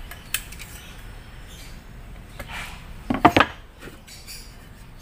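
A few short knocks and clatters from objects being handled, the loudest a quick cluster of three knocks about three seconds in.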